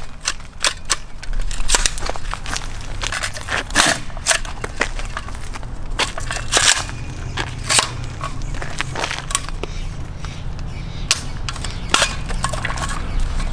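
AR-15 rifle fired semi-automatically, a string of sharp shots at an uneven pace of about one to two a second, over a steady low rumble.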